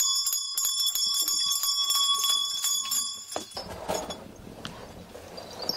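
Shaman's hand bell ringing and jingling rapidly, several bright held tones with quick metallic strikes, used to call the spirit at the start of a trance ritual. The ringing stops about two-thirds of the way through, leaving quieter, indistinct noise.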